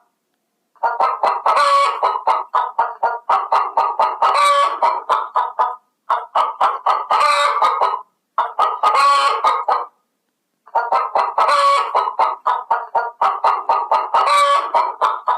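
Chickens clucking in quick, repeated short calls, in runs of a few seconds broken by brief silent gaps, with a sharper, louder call every few seconds.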